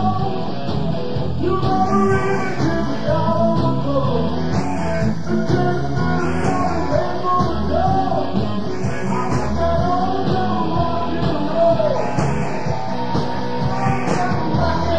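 Old-time rock and roll played by a band: electric guitar and a steady drum beat, with singing. A slow swooshing sweep runs over the whole mix every couple of seconds.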